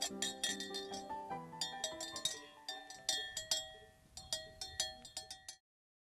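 Cowbells clanking irregularly, many quick metallic strikes each ringing on briefly, cutting off suddenly shortly before the end.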